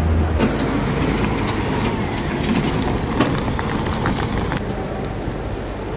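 Wheeled hard-shell suitcases rattling over rough concrete pavement, with a city bus's engine running close by. A low steady engine hum, as heard from inside the bus, drops away about half a second in.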